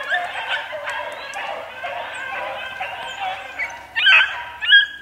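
A pack of beagles baying in chorus as they run a rabbit's track, many hound voices overlapping. Two louder bays from a nearer hound come near the end.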